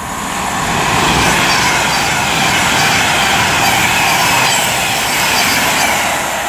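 Class 390 Pendolino electric train passing at speed. The noise builds over the first second and stays loud as the coaches go by, easing slightly near the end.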